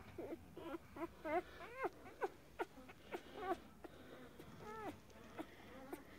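Newborn puppies squeaking and whimpering: a string of short, high calls, about two a second, each rising and falling in pitch.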